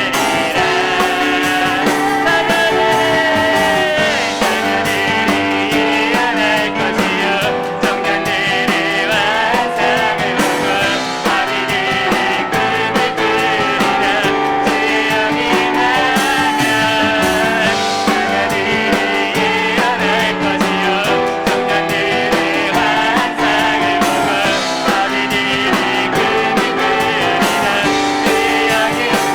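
Live church praise band playing a worship song: singers over piano and drums.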